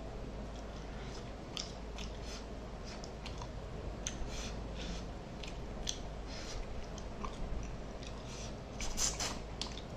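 Close-up chewing and wet lip smacking of a person eating mackerel fish curry by hand: an irregular run of short smacks and clicks, the loudest cluster about nine seconds in.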